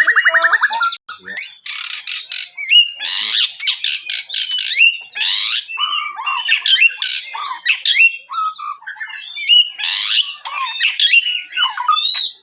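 White-rumped shama (murai batu) singing a fast, varied song of harsh rasping notes mixed with clear whistles and quick rising and falling glides. It follows a rapid pulsed trill that ends about a second in.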